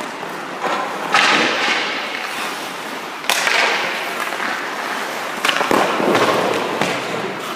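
Goalie skate blades scraping and cutting the ice in sudden bursts, with sharp knocks, about five in all a second or two apart, each ringing out in the rink's long echo.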